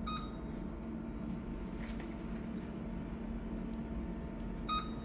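Two short electronic beeps from the control panel of an Olympus disinfection machine, one at the very start and one near the end, over a steady low hum.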